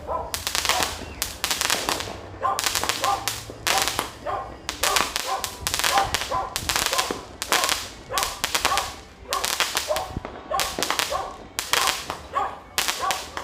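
Fireworks and firecrackers going off in rapid crackling, popping volleys, about one dense burst a second.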